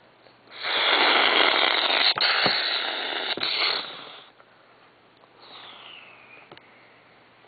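A harsh burst of hiss-like noise with a few clicks, played through a small, tinny speaker, lasting about three and a half seconds before fading out. A faint falling whistle follows a little later.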